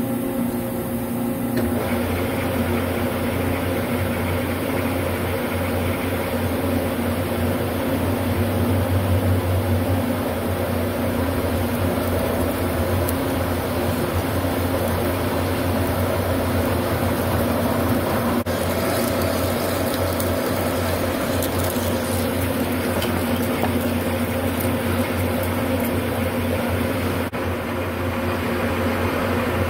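Metal lathe spindle starting about two seconds in, then running steadily with a gear-driven hum while a large twist drill cuts into a metal bar, then a boring bar cutting inside the drilled hole near the end.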